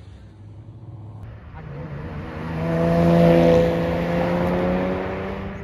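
A Chevrolet Camaro driving past. Its engine note grows louder to a peak about three seconds in and holds a fairly steady pitch as it goes by.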